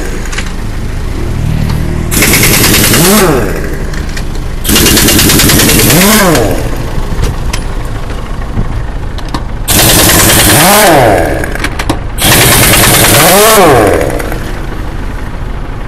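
Pneumatic impact wrench hammering loose the wheel nuts of a truck wheel: four bursts of rapid rattling, each about a second and a half long, its whine rising and then falling in pitch as it spins up and winds down.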